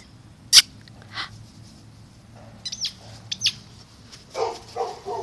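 Small terrier making a few short whiny vocal sounds near the end, with two brief bird chirps a little earlier and a sharp click about half a second in.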